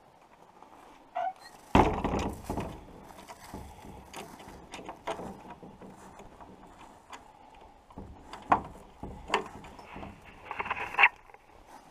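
Wooden outhouse door being shut and its metal latch handle worked: a loud thump about two seconds in, then scattered clicks and knocks of the latch, with a brief rattle near the end.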